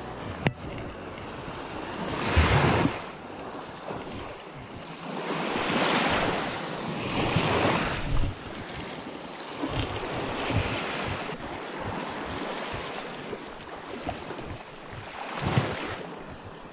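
Small sea waves washing onto the shore, the wash swelling and fading every few seconds, with one sharp click about half a second in.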